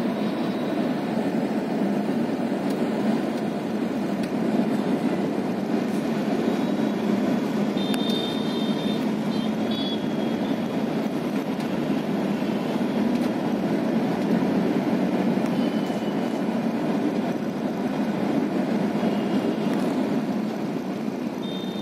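Steady low rumble of a car's engine and tyres while driving, heard from inside the cabin, with a few faint short high tones about eight seconds in.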